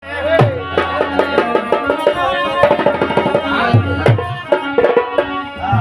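Instrumental opening of a Bundelkhandi Rai folk song: a hand drum plays quick strokes, some of them low notes that bend down in pitch, under a pitched melody instrument.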